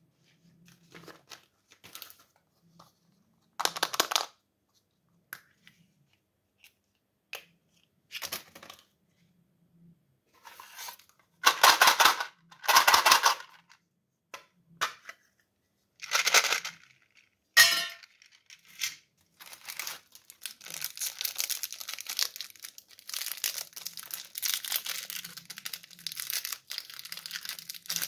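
Candy wrappers rustling and crinkling as they are handled, in scattered bursts with a sharp click about two-thirds of the way through. In the last third comes steady crinkling of a foil-and-plastic wrapper being peeled open.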